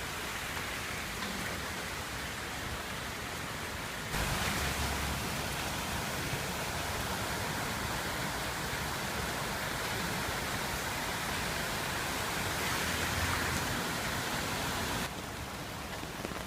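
Steady noise of heavy rain and a flooding stream's rushing water. It gets louder about four seconds in and drops back near the end.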